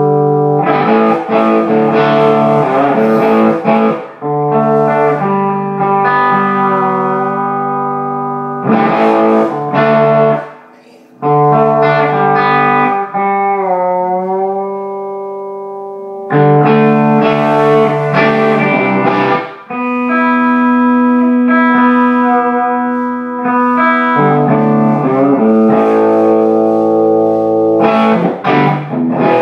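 Overdriven electric guitar played through a 10-watt 6AQ5 valve amplifier: distorted chords and riffs. About ten seconds in there is a short break, then a single held note that wavers in pitch and slowly fades before the chords come back.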